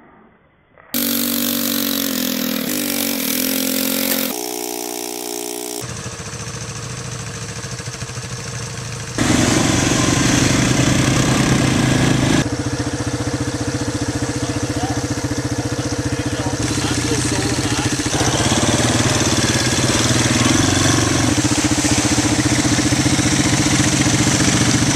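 Red four-wheeler ATV's engine running and revving as it is ridden, in several clips cut together, so the engine note jumps abruptly a few times. It starts about a second in.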